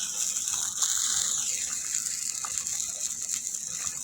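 Thick jaggery (gur) mixture simmering in a pan over a low flame, near the point of being done. It makes a steady hiss with scattered small pops.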